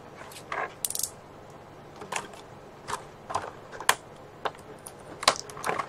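Clear plastic blister-pack trays being handled and pulled apart, giving irregular light clicks and crackles.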